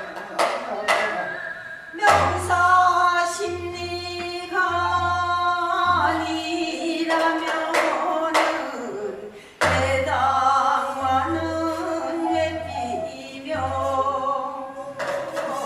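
Gyeonggi folk singing in the fast hwimori japga style: voices sing sustained and sliding notes, punctuated by sharp percussive strikes.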